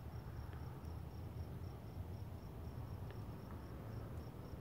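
Cricket chirping steadily in a high, even pulse, about four chirps a second, over a low background rumble.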